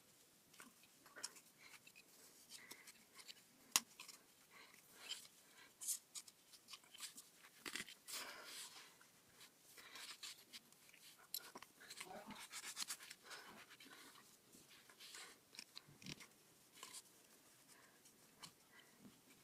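Faint, irregular rustling and scraping of muffler packing material being worked and pushed through a two-stroke dirt bike muffler by hand, with a single sharp click about four seconds in.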